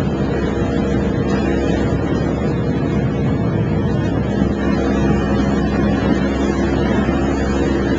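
Motorboat engine running steadily under way, a constant hum with wind and water noise over it.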